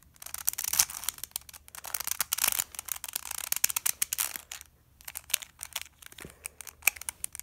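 A plastic MoYu Crazy Fisher (Yulang) twisty-puzzle cube being turned by hand: rapid clicking and clacking of its layers, with a short pause about five seconds in.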